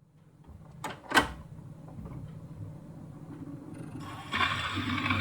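Two sharp clicks, the second louder, over the low hum and hiss of an old soundtrack recording. The hiss grows clearly louder about four seconds in.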